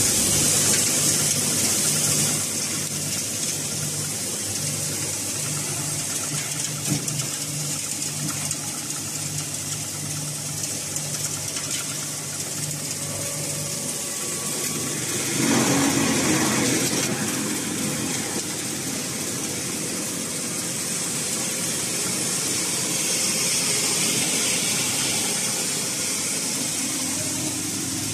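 6N70 mini rice mill driven by a three-phase electric motor, running steadily with a low hum and a high hiss; about halfway through, a louder rushing surge lasts a second or two.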